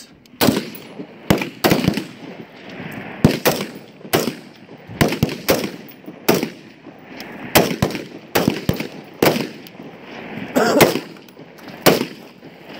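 Rifle fire: about twenty single shots at an uneven pace, some coming in close pairs.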